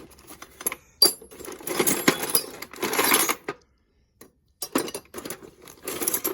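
Small hard objects, clinking and rattling as they are handled and rummaged through, in two spells with a short quiet gap in the middle.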